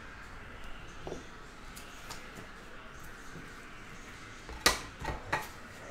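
Quiet handling of a trading card in a hard plastic holder: light faint clicks, then three sharp plastic clicks and taps in quick succession about three quarters of the way in, the first the loudest.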